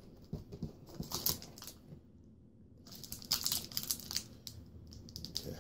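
Kitchen knife sawing through a dense RX protein bar on its wrapper, with scraping, crinkling and small taps of the blade against the paper and wrapper; it pauses briefly about two seconds in, then starts again.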